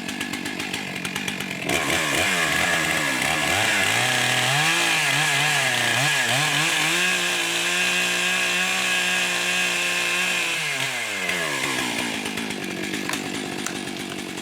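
Two-stroke chainsaw idling, then revved up with its pitch rising and wavering, held at steady high speed for a few seconds, and let fall back to idle about ten seconds in.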